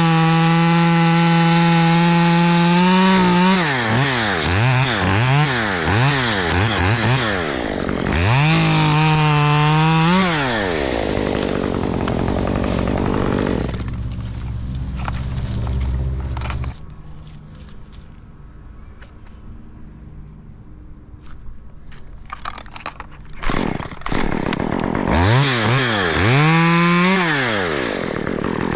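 Two-stroke chainsaw cutting oak: revving high, then its pitch dipping and rising again and again as the chain bites into the wood. Partway through it drops back to a much quieter stretch with a few light clicks and a knock, then revs up and cuts again near the end.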